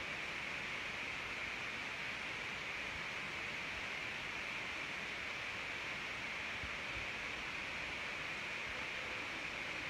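Steady, even hiss of background noise with nothing else standing out.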